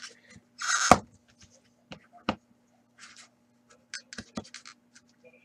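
Fingers scraping and prying at a tightly packed black hockey card box to work the cards out: short rubbing swishes and several sharp taps and clicks, the loudest a swish ending in a knock about a second in.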